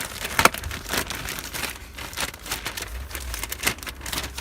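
Wrapping of a new cabin air filter being torn open and crinkled by hand: irregular crackling and rustling.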